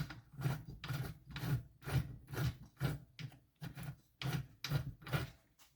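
Rhythmic rasping strokes, about two a second, of a hand tool being worked back and forth, like filing or scraping.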